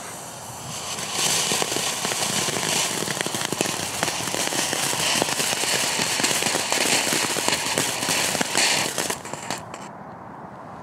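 Small F1 firework fountain spraying sparks with a steady hiss and scattered crackles, starting about a second in and dying out about nine seconds in.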